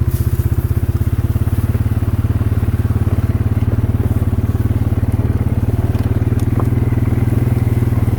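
Engine of an off-road trail bike running steadily at low speed with a fast, even pulse as it crosses a frozen swamp.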